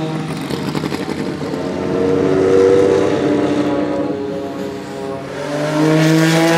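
Porsche 961's 2.9-litre twin-turbo flat-six race engine accelerating hard. Its note climbs to a loud peak about two and a half seconds in, falls back, then climbs to a second peak near the end.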